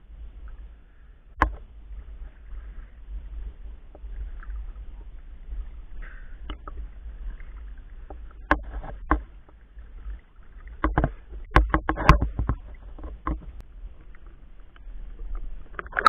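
Water sloshing and lapping around a swimmer moving slowly at the surface, with scattered sharp clicks and knocks and a denser cluster of them about eleven to thirteen seconds in.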